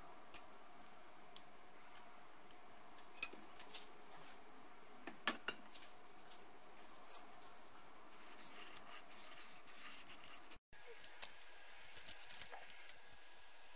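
Spoon clinking and scraping against a ceramic mixing bowl and a metal muffin tin as coconut macaroon mixture is scooped into paper liners: scattered light clicks over a faint steady hum. The sound cuts out for a moment near the end.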